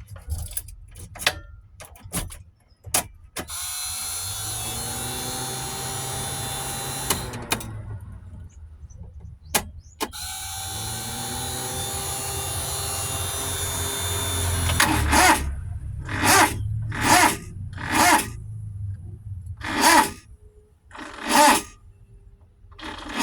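Daihatsu Multicab being cranked by its starter motor in a hard start: a few clicks, then two long cranking spells of about four seconds each, the pitch creeping up slightly, followed by a string of six short loud bursts in the last eight seconds.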